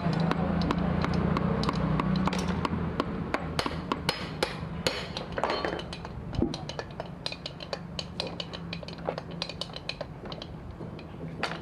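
Metal tools and parts clinking and tapping, with many small, irregular knocks and clicks, over a low steady hum that fades about six seconds in.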